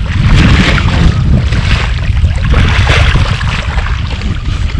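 Wind buffeting the microphone outdoors by the water: a loud, unsteady low rumble with a hiss of noise over it.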